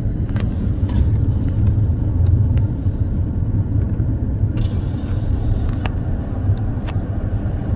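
Steady low rumble of a car in motion: engine and road noise, with a few faint clicks.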